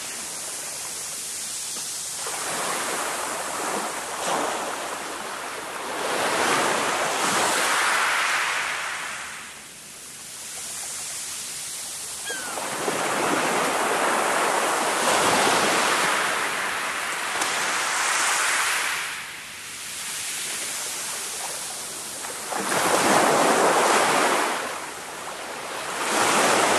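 Small waves breaking and washing up a shingle beach, the wash swelling and easing every few seconds.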